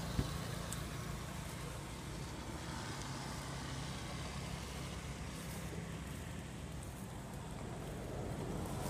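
Steady low hum of an engine running, with one sharp click just after the start.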